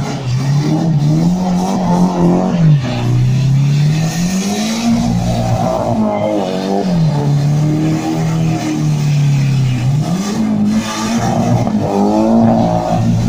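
Nissan S14 being drifted: its engine revs climb and drop again several times as the rear tyres spin and slide on tarmac, squealing and smoking.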